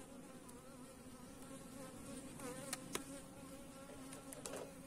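Honeybees buzzing as a faint, steady hum over an open hive. A few light clicks come about two to three seconds in and again near the end as the frames are worked with a hive tool.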